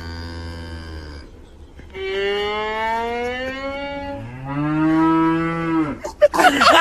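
A violin playing long sustained and slowly rising notes, answered by a cow's long, low moo that rises and falls in pitch. A short, loud noisy burst follows near the end.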